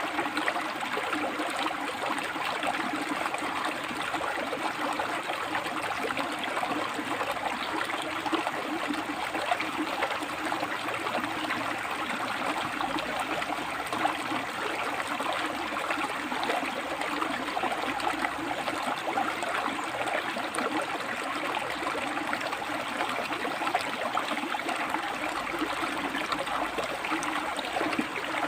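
A rocky river flowing steadily, water splashing and burbling between the rocks.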